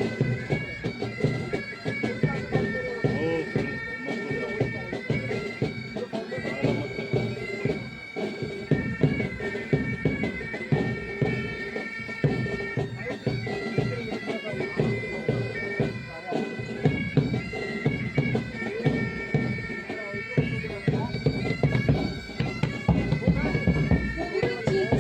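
Pipe band playing: bagpipe melody over the steady drone, with snare and bass drums beating underneath.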